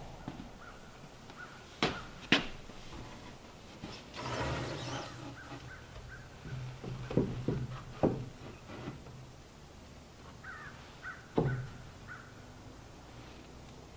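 Scattered sharp knocks of wooden boards being handled and set against wooden wall studs, with a few faint caws in the background.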